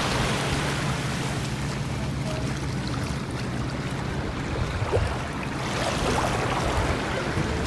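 Lagoon shore ambience: wind and water noise from small waves in the shallows, with a steady low hum that fades about halfway through.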